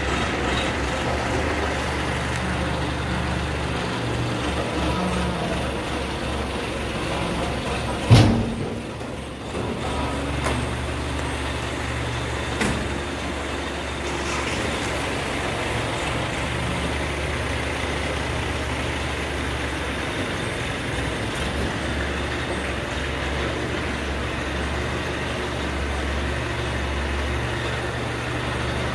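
ACE 12XW hydra crane's diesel engine running steadily under load as it hoists and swings a transformer. About eight seconds in there is a single sudden loud knock, after which the engine noise drops briefly before picking up again; a couple of lighter clicks follow.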